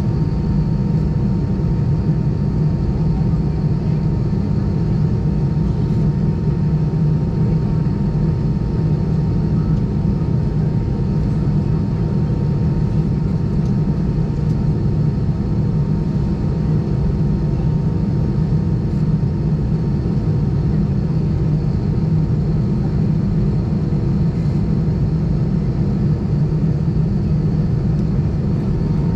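Airbus A320 cabin noise on the ground: the jet engines idling with a steady low rumble and a thin, steady whine.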